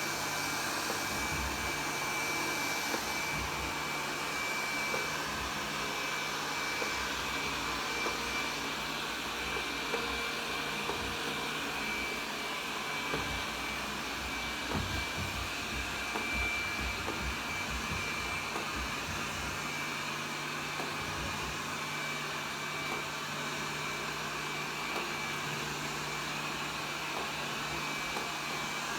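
AIRROBO P30 robot vacuum cleaner running in edge-cleaning mode: a steady whir from its motor with a thin high whine and a low hum.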